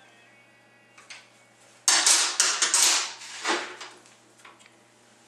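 Metal wrench clinking and scraping as the counter nut on the low band adjusting pin of a 4L30-E automatic transmission is tightened: a quick run of loud metallic strokes starting about two seconds in and ending at about three and a half seconds.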